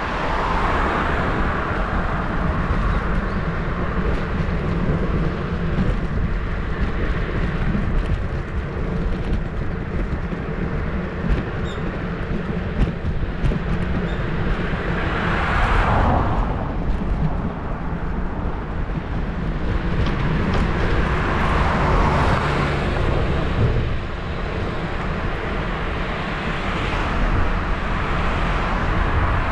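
Road traffic heard from a moving bicycle: several cars pass, each swelling and fading over a second or two, over a steady low rumble of wind on the bike-mounted action-camera microphone.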